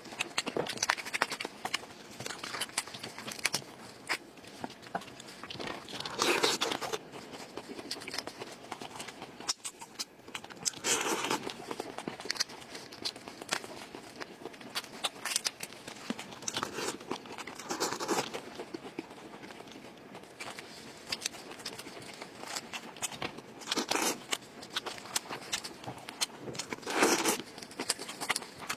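Close-miked eating: chewing and biting food, with many small wet clicks and crackles and several louder crunchy stretches.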